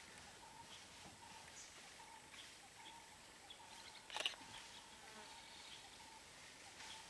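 Faint forest ambience: a soft insect drone with a few faint distant bird chirps, and one short sharp crackle about four seconds in.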